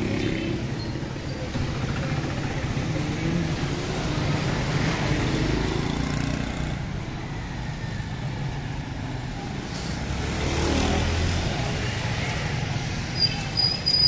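Busy street traffic: a steady mix of car and motorcycle engines, with a low engine hum swelling about ten seconds in and a few short, high-pitched beeps near the end.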